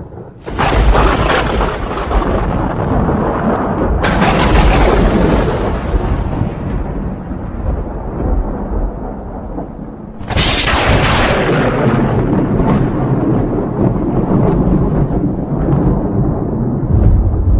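Thunder: three sudden cracks, about half a second in, at about four seconds and at about ten seconds, each rolling off into a long low rumble that carries on between them.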